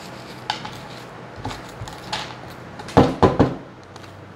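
Metal spoon scraping seeds and stringy pulp out of a halved pumpkin, a run of short rasping strokes with three louder ones about three seconds in.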